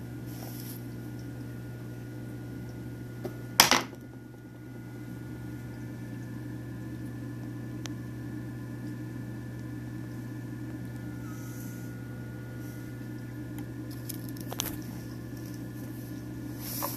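Steady low hum of a 29-gallon Biocube aquarium's running pump. A sharp knock about three and a half seconds in, and two fainter clicks near the end.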